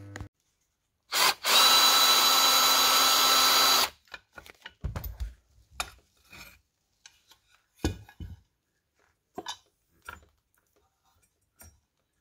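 A power tool runs loudly and steadily for about two and a half seconds, a whir with a faint whistle. Then come scattered clicks and a few dull knocks of metal parts being handled: the recoil starter cover coming off a small motorcycle engine's flywheel.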